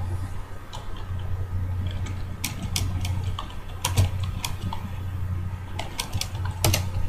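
Irregular clicking of typing on a computer keyboard, a dozen or so keystrokes at uneven spacing, over a steady low hum.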